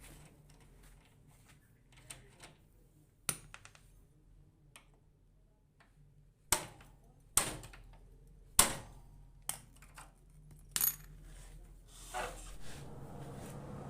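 Metal tools and small metal parts clinking and knocking as they are handled. The clinks are scattered, with the loudest coming about once a second through the middle stretch.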